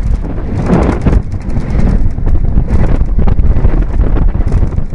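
Roller coaster train running at speed on steel track: a loud rumble and clatter of its wheels, with wind buffeting the microphone.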